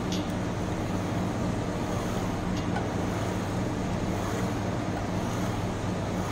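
Steady low electric machine hum, with a few faint light clicks as the drilling machine's table slides sideways on its bearings.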